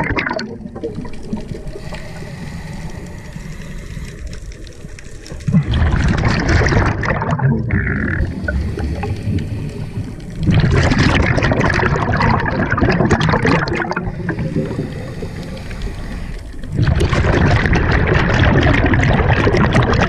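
Scuba diver's exhaled air bubbling out of the regulator and rising past the camera, heard underwater as long bursts of bubbling and gurgling with quieter gaps between breaths.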